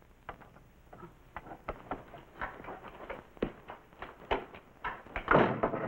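Footsteps of a man in boots walking across a wooden floor, a string of irregular knocks, with a louder scuffing sound near the end.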